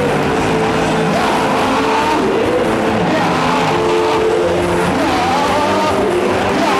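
Congregation singing worship music over sustained held chords, loud and dense throughout.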